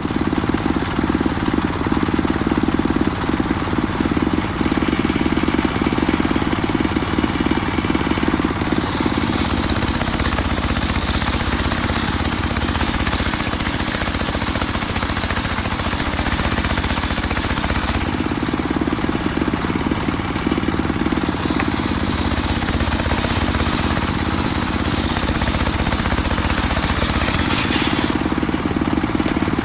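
Homemade circular sawmill running steadily while sawing a mahogany log, a loud mechanical drone. A higher hiss comes in about nine seconds in, drops out for a few seconds around eighteen seconds, returns, and fades again near the end.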